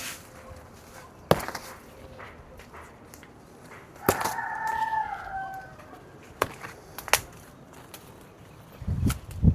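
A chicken crowing once: a single drawn-out call of about a second and a half that falls slightly at the end. A few sharp knocks come before and after it.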